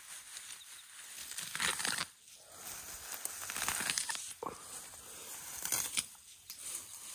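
Young African elephant calf tearing up and munching long grass close by: crisp ripping and rustling in irregular bursts.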